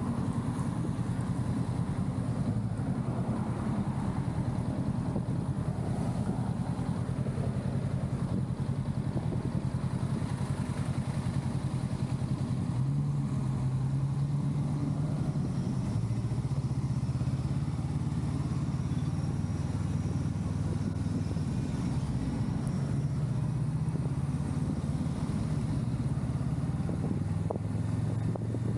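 Honda Rebel 500 SE's parallel-twin engine running steadily under the rider. Its pitch rises a little about halfway through and eases back a few seconds later.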